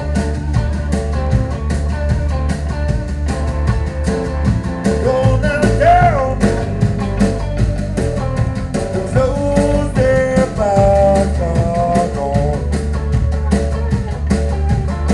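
Live blues-rock trio playing loudly: Stratocaster-style electric guitar and bass guitar over a steady drum-kit beat, with a melody line that bends in pitch.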